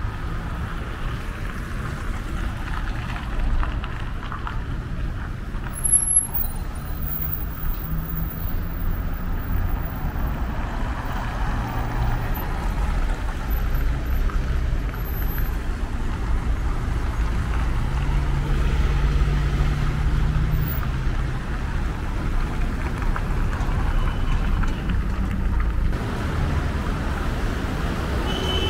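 Street traffic: cars and trucks passing, a steady low rumble of engines and tyres, with a vehicle's engine hum swelling and fading about two-thirds of the way through. A brief thump about six seconds in.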